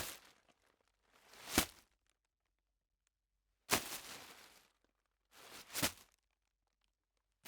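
A plastic bag crinkled and rustled by hand in four separate bursts with silence between; two of them swell and end in a sharp crackle.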